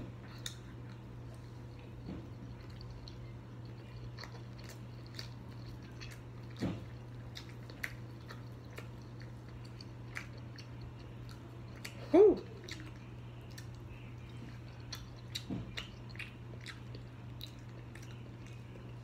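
A person chewing and biting into sauced chicken wings close to the microphone, with many small wet mouth clicks over a steady low hum. A short vocal sound comes about twelve seconds in.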